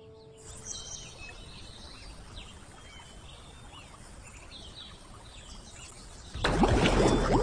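Outdoor waterside ambience with birds chirping, after the tail of a musical note fades out. About six and a half seconds in comes a loud splash of water that carries on splashing.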